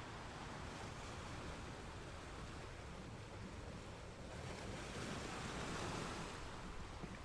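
Ocean waves washing in, a steady noisy rush with one wave swelling louder a little past halfway and then falling away.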